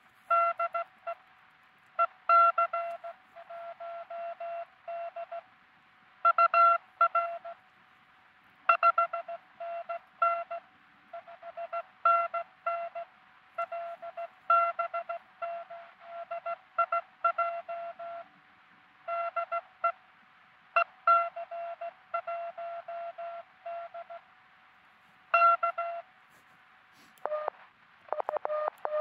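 Morse code (CW) tones from a truSDX QRP transceiver: one steady pitch keyed into dits and dahs. It comes in a louder signal and a quieter one, taking turns as in a CW exchange. Near the end there is a brief jumble of shifting tones.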